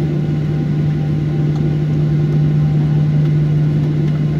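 Steady cabin noise of a jet airliner taxiing, its engines at idle, a constant low hum over an even rumble.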